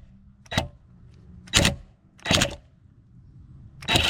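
Four short knocks and clatters, roughly a second apart, from parts and tools being handled.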